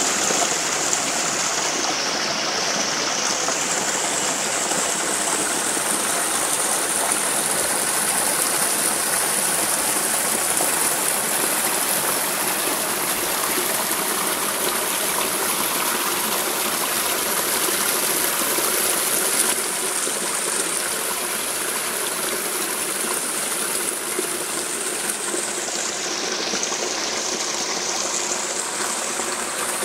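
Small creek running over stones, a steady rushing and splashing of water.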